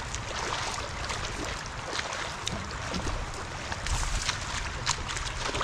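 Shallow floodwater running across a road, a steady rushing hiss, with a few light splashes from bare feet wading through it and low wind rumble on the microphone.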